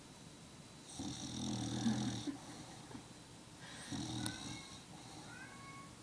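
A sleeping bulldog snoring: one long snore about a second in and a shorter one around four seconds in.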